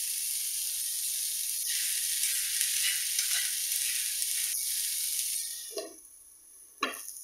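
Chopped bell peppers and green beans sizzling in butter in a nonstick frying pan, stirred with a spoon. About five seconds in, the sizzle drops away as a glass lid is set on the pan, with two light clinks.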